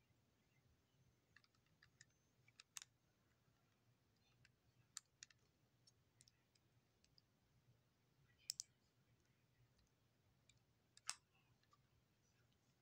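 Near silence broken by faint, scattered clicks and small taps of hard objects, about a dozen, spread unevenly with no rhythm.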